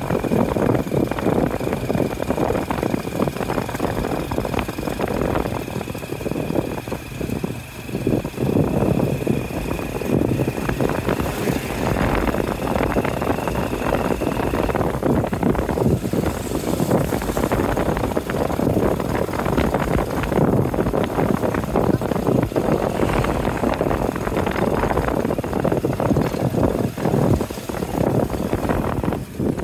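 Tuk-tuk's motorcycle engine running with road and wind noise, heard from the passenger carriage while riding. A thin steady high tone runs along with it and stops about halfway through.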